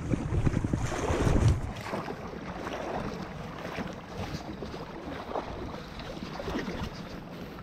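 Wind buffeting the microphone over the steady rush of river water. The gusts are strongest in the first second or so, then ease off.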